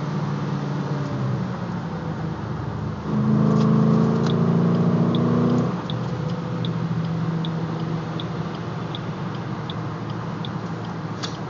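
Cabin view of a 2008 Ford Mustang GT's 4.6-litre V8 through a Borla exhaust, cruising at highway speed with a steady drone. About three seconds in, the note grows much louder and climbs slightly under throttle for a couple of seconds, then settles back to cruise.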